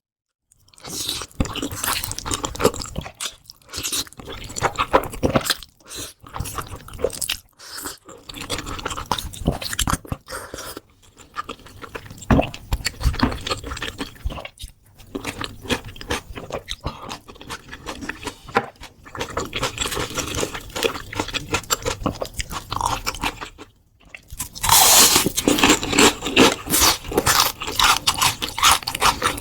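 Close-miked ASMR eating: crunchy bites and chewing of crispy batter-fried jumbo shrimp, in irregular clusters with brief pauses, getting louder and denser near the end.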